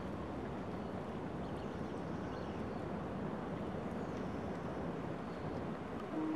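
Steady outdoor background noise, an even low rumble and hiss like distant traffic or wind, with faint high chirps and a brief low tone near the end.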